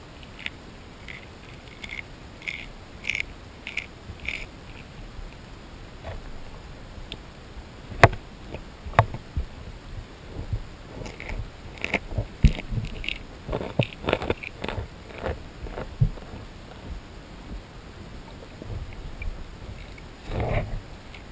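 Grass carp crunching corn kernels and cat kibble underwater, the food cracking between their throat teeth. It comes as an irregular run of short clicks and cracks, light at first, then louder and sharper from about eight seconds in.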